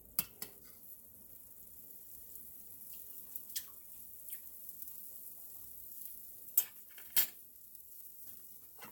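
Lemon and onion sauce bubbling at a steady boil in a stainless steel skillet, with a utensil clinking against the pan several times, two louder clinks near the end.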